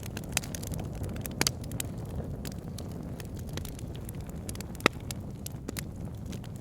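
Wood logs burning in a fireplace: a steady low rush of flame with scattered sharp crackles and pops. The loudest pop comes about five seconds in.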